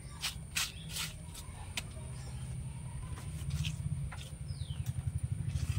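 Hand scraping and gathering wet chutney paste on a stone grinding slab, with light clicks and taps in the first two seconds. Under it runs a low rumble that grows louder toward the end, and a bird gives a short falling call near the end.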